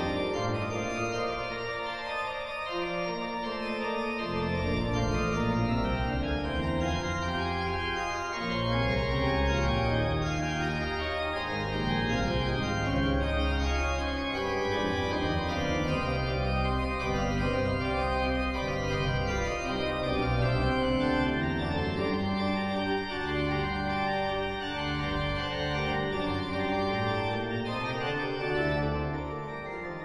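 Organ music playing slow, sustained chords that change every second or two.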